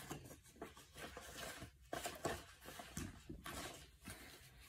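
A deck of tarot or oracle cards being shuffled and handled: soft, irregular rustling and flicking clicks of card on card.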